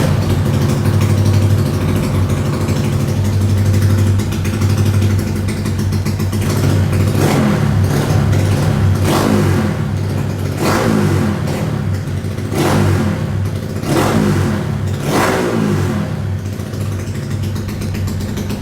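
Modified Honda Wave 125 motorcycle with a big-bore MSX engine and full aftermarket exhaust, idling loudly and then blipped sharply about six times, each rev dropping back to idle.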